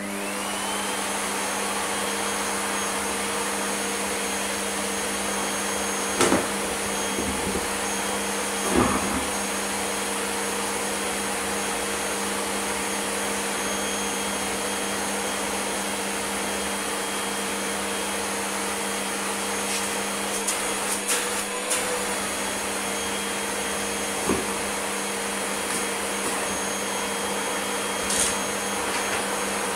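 Zelmer Aquawelt water-filter canister vacuum cleaner spinning up at the start with a rising whine, then running steadily with a high-pitched whine. A few sharp clacks and rattles come through as the floor nozzle works over the scattered debris.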